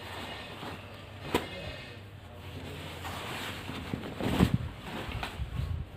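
Cloth rustling as a blouse is unfolded and spread out by hand, with a sharp tap about a second and a half in and a louder handling thump a little past the middle.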